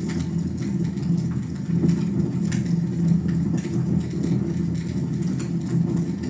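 Wood fire in a fireplace crackling, with scattered sharp pops and clicks over a steady low hum.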